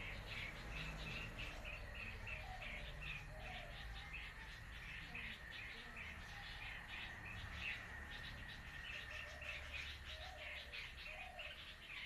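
Common bulbuls calling: a steady run of short, sharp chirps, about three or four a second, with a few lower notes in between.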